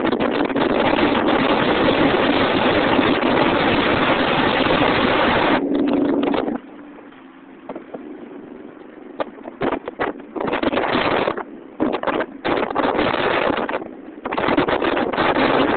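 Wind rushing and buffeting across the microphone of a car driving fast, with the engine and road noise of a 2005 Subaru Impreza WRX STI underneath. The rush drops away about six and a half seconds in, then gusts back in irregular bursts.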